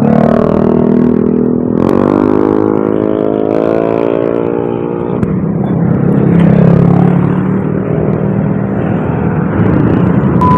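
Dense traffic of idling and pulling-away motor scooters and motorcycles, many small engines running at once, with one engine revving up in a slow rising pitch from about two seconds in to halfway through.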